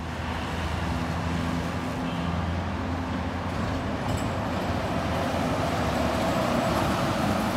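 Road traffic running steadily, with the low drone of a heavy vehicle engine, here a red articulated bus passing through a sunken roadway below.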